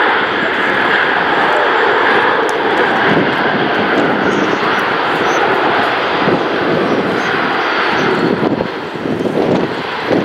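The six Progress D-18T turbofan engines of an Antonov An-225 Mriya, giving a loud, steady jet noise as the aircraft rolls out along the runway after landing. The noise eases and becomes uneven about eight seconds in.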